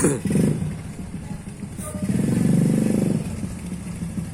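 Small ATV engine running under the rider's throttle. It revs up for about a second from about two seconds in, then drops back to an uneven low idle.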